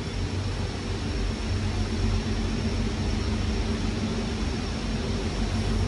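Steady machinery hum in an automotive glass lamination line's lay-up room: a low drone with a constant mid-pitched tone and a faint high whine, with no distinct knocks or clanks.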